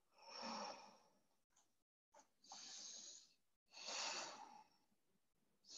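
A woman's faint breathing while holding a yoga pose: three audible breaths about a second and a half apart.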